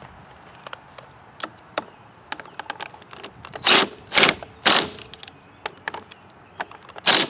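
Cordless power driver with a half-inch socket spinning a pulley nut down in short bursts, three close together about halfway through and one more near the end, to tighten the drive pulley of a self-propelled mower. Light metal clicks come before the bursts.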